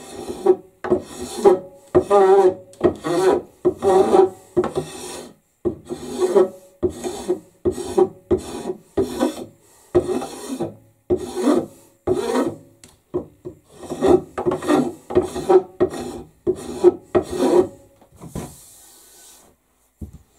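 A hand file rasping back and forth along a wooden axe handle, thinning it down, at about two strokes a second. There is a short pause about five seconds in, and the strokes stop a couple of seconds before the end.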